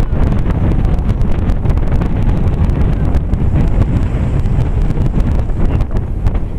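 Wind buffeting the microphone: a loud, steady low rumble with frequent sharp clicks.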